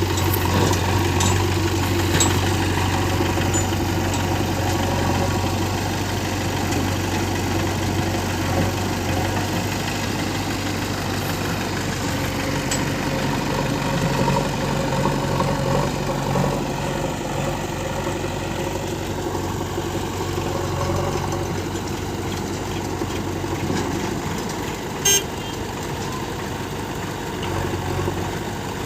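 Diesel engines of a JCB 3DX backhoe loader and tractors running steadily with a deep hum. A single short, sharp knock comes a few seconds before the end.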